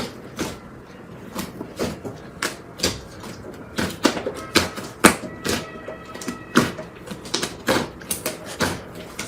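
Slime being squeezed and poked by hand, giving irregular sharp pops and clicks, about two or three a second.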